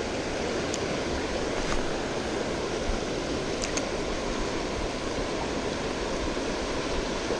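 Fast river current rushing steadily through rough, broken water, with a few faint ticks.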